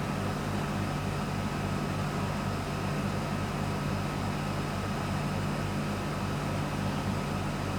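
A steady low hum over a hiss, with a low throb pulsing about four to five times a second and a faint high whine.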